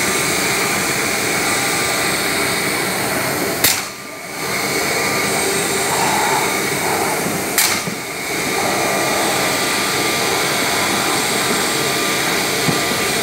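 Holztek CNC router at work cutting a particleboard panel: the spindle and its dust extraction run with a steady, loud roar. Two sharp clicks come about a third and about two-thirds of the way in, each followed by a brief drop in level.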